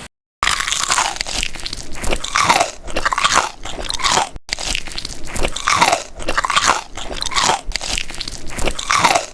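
Close-miked chewing of a luncheon meat egg sandwich. The bread crunches in rhythmic bites, about two a second.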